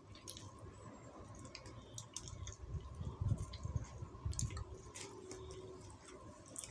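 A man eating: metal spoon and fork clicking and scraping on a plate of rice, with chewing close to the microphone.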